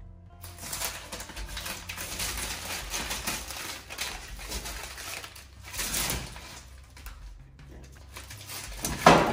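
Blue painter's tape being peeled off an aluminium canopy panel and crumpled in the hand, an uneven crackling and tearing, with one louder sound near the end.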